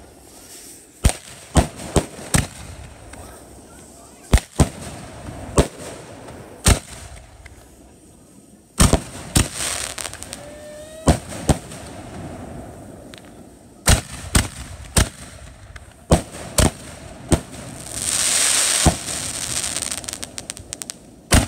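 Consumer aerial fireworks bursting overhead: a long, irregular string of sharp bangs, some in quick pairs and clusters. Near the end comes a dense spell of hissing crackle.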